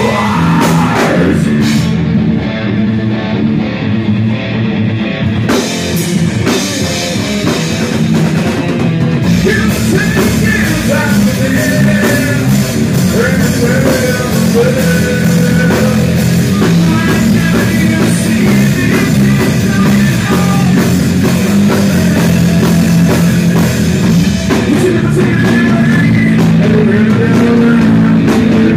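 Live heavy rock band playing a song: electric guitars and a drum kit, with a vocalist singing into a microphone. The high, splashy top of the sound drops away for about three seconds a couple of seconds in, then the full band comes back.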